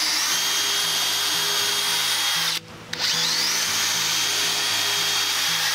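DeWalt cordless drill boring pilot holes into thin 1x4 boards so the screws won't split the wood: the motor runs steadily, stops for a moment about two and a half seconds in, then spins up again with a rising whine for the next hole.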